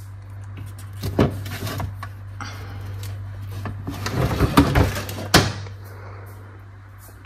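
Scattered knocks and clatter, like a door or cupboard being handled, building to a cluster near the middle and ending in one sharp knock, over a steady low hum.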